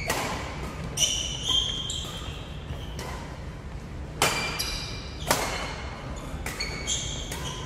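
Badminton rally: rackets hitting the shuttlecock with a sharp crack every second or so, and short high squeaks of shoes on the wooden court floor between hits, in a large sports hall.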